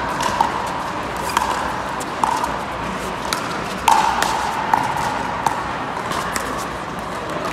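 Pickleball rally: paddles striking the plastic ball back and forth, sharp hits roughly once a second, the loudest about four seconds in.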